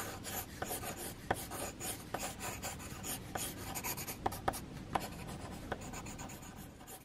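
Rapid sketching strokes of a drawing tool scratching across paper, with short sharp ticks as the tip strikes the sheet. The scratching fades out near the end.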